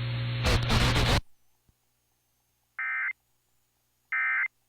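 Radio static with crackles that cuts off just over a second in. Then two short, identical data-tone bursts about a second and a half apart: the Emergency Alert System's end-of-message (EOM) SAME signal closing the Severe Thunderstorm Warning.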